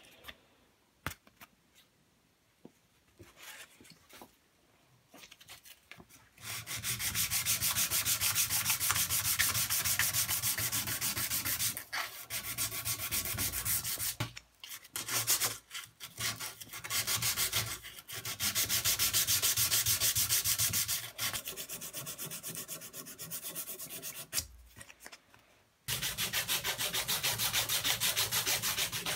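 Abrasive paper rubbed by hand along a knife handle clamped in a vise, in fast, even back-and-forth strokes. It starts about six seconds in and stops briefly a few times.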